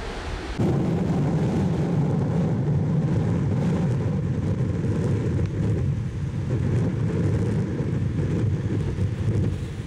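Strong wind buffeting the microphone: a loud low rumble over the wash of breaking surf, starting abruptly about half a second in.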